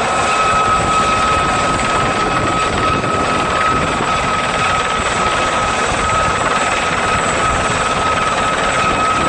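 Helicopter flying nearby: loud, steady rotor and engine noise with a constant high whine running through it.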